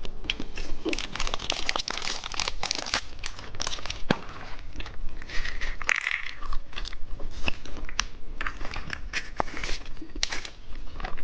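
Plastic candy packaging crinkling as it is handled and unwrapped, a dense run of sharp crackles throughout.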